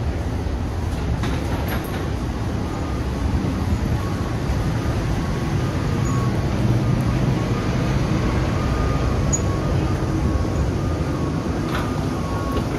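Steady low rumble of an airport jet bridge beside a parked airliner during boarding.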